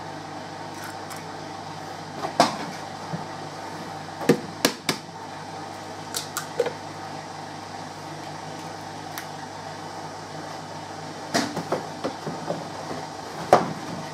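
Eggs being cracked against the rim of a plastic blender jug: several sharp taps and shell clicks at irregular moments. Under them runs the steady hum of a washing machine.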